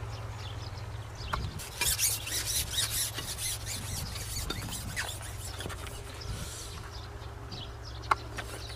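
Crackling rustle of grass and leaves while a fish is yanked out of a small water hole on a line and swung through the air. The rustling is densest about two to three seconds in, over a steady low hum, with a single sharp click near the end.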